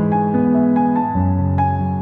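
Background music: a gentle piano or electric-piano melody, notes changing about every half second.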